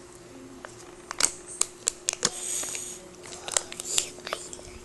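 Crinkling and sharp plastic clicks as a Kinder Joy's plastic egg half is handled and its foil seal peeled off, with a brief crinkly hiss about halfway through.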